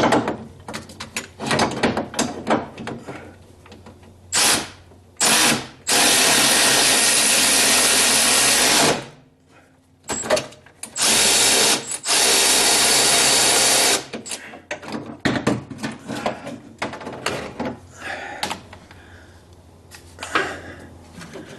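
Powered ratchet wrench running on the light-bracket stud in several bursts: two short ones, then two long runs of about three seconds each. Small metal clinks and handling sounds fall between the runs. The socket slips off the stud, leaving the tool spinning freely.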